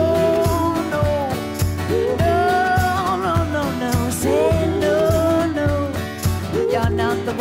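A song playing: a sung melody with long held notes over a steady beat.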